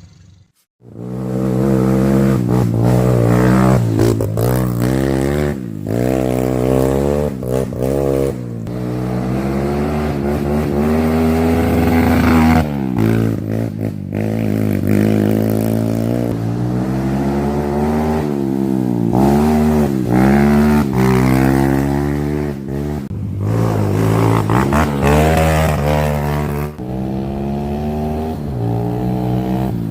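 Motorcycle engine revving up and down again and again under throttle as it is ridden, starting after a brief silence.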